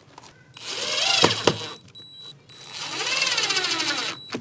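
Cordless drill running in two bursts, its motor whine rising and then falling in pitch each time, as it drives screws into a fish-finder housing.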